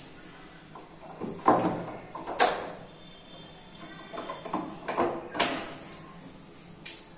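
Laminated kitchen cabinet door knocking and clacking against its cabinet as it is held in place and its hinges fitted. There are several sharp knocks, the loudest about two and a half and five and a half seconds in, with lighter clicks between.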